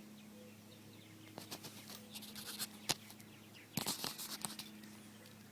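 Light clicks and taps of small objects being handled and set down on a tabletop, scattered at first with a louder cluster about four seconds in, over a steady low hum.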